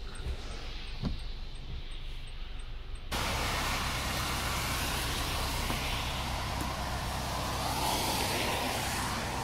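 For about three seconds, a low steady rumble inside a car's cabin. Then, after an abrupt change, a loud steady rushing noise of wind and running floodwater.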